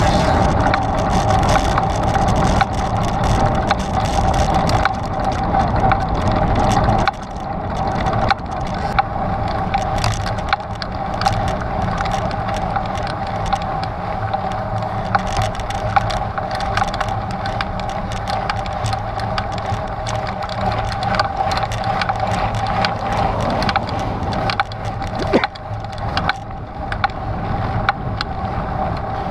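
Trek Stache 9 29+ mountain bike rolling over a rocky dirt trail: a steady hum of the wide tyres under frequent sharp clicks and rattles from stones and the bike's parts.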